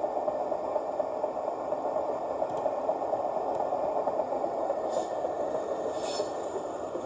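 Recorded bogie/truck running sound played through the ESU LokSound 5 Fx decoder's speaker in a Metra Nippon-Sharyo gallery cab car model: a steady rattling rumble of a rolling rail car, with two faint high squeaks near the end.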